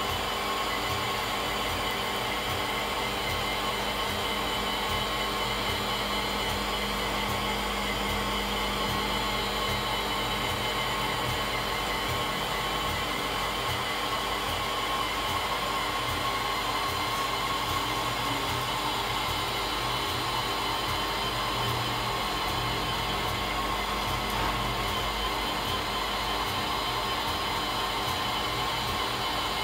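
Five-axis CNC machining center running during a rotary table test: a steady whirring hum from the spindle and table drives, with several steady tones held throughout.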